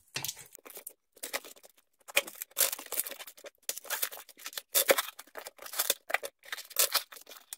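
A small knife slitting taped cardboard packaging, and the cardboard being torn and pulled apart: a run of short, irregular scraping and tearing noises.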